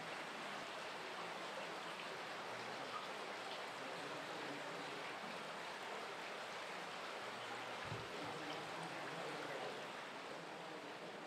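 Water of the underground Tridaine spring flowing steadily over rocks as a small stream. A brief low thump comes about eight seconds in.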